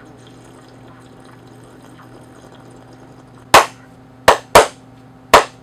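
A low steady hum, then four loud, sharp hand claps starting about three and a half seconds in, unevenly spaced.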